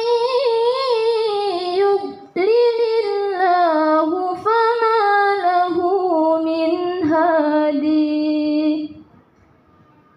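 Solo female Qur'an recitation in the melodic tilawah style, the voice holding long, ornamented melismatic lines. It comes in three phrases, with short breaks about two and seven seconds in, and ends about nine seconds in.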